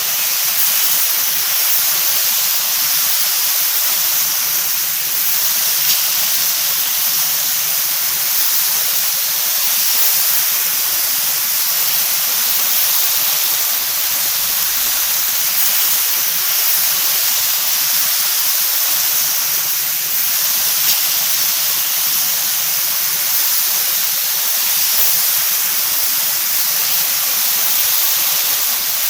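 Meat frying in a hot pan: a steady, dense sizzle, with an occasional faint pop.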